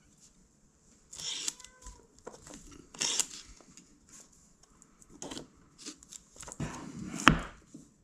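Packaging being handled and torn at while a mail parcel is opened, in several short crinkling, tearing bursts with a sharp knock near the end.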